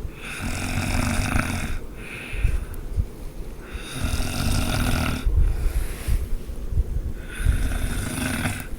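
A person snoring: three long snores, about three and a half seconds apart.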